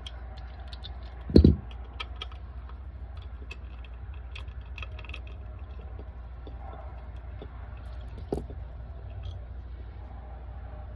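Small metal clicks and taps of bolts and hand tools being handled while the derby cover bolts come out for Loctite, over a steady low hum. A loud thump comes about a second and a half in, and a lighter knock near the end.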